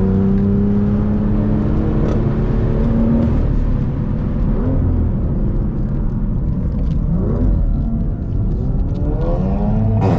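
BMW M2's turbocharged straight-six with an M Performance exhaust, driving at steady revs, then easing off, with the revs climbing steeply near the end as it accelerates.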